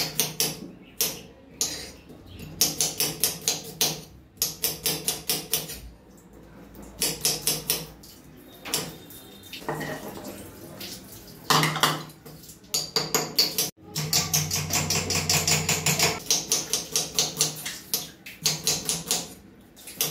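A kitchen knife slicing red onion, the blade tapping against a bare hard countertop in quick runs of strokes with short pauses between.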